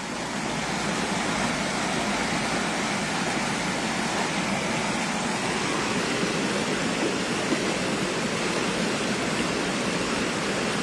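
Water pouring over a low concrete weir into a shallow channel: a steady rushing that grows a little louder over the first second or two.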